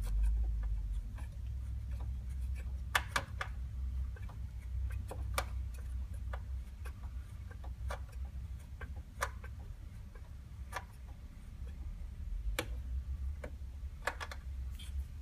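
Screwdriver turning out a screw by hand: scattered, irregular light metallic clicks and ticks, a few close together about three seconds in and again near the end, over a low steady rumble.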